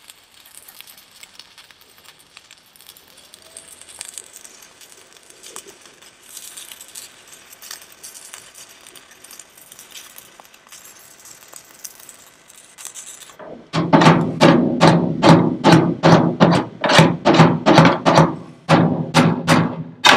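Stick welder arc crackling as a 7018 rod burns on the steel dump bed floor. About 13 seconds in the arc stops and a hammer starts striking a steel patch plate, about two ringing blows a second, much louder than the welding.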